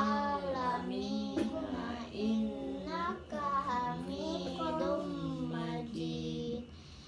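A young girl chanting an Arabic prayer recitation in a sing-song melody, drawing out long notes and pausing briefly near the end.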